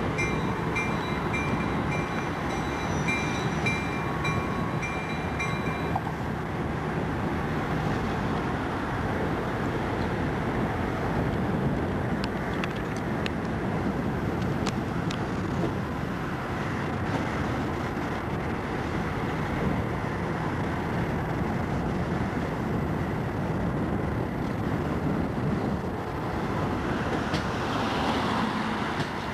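Passenger train rolling slowly past, a steady rumble of wheels on the rails. For the first six seconds a repeated high ringing sounds over it.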